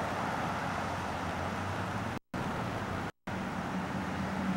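Steady traffic noise from a nearby highway, mixed with wind on the microphone. The sound cuts out completely twice for a split second, about two and three seconds in.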